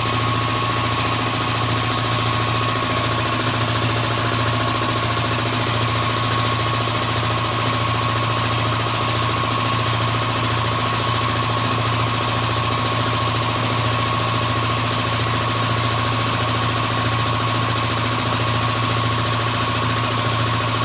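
HUGO MAX two-stage, belt-driven piston air compressor running steadily under its 4 hp single-phase electric motor: an even mechanical hum with a constant high whine over it.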